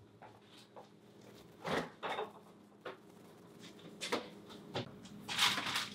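Rummaging through an open refrigerator: several light knocks and clatters of containers being moved, then a short rustle near the end.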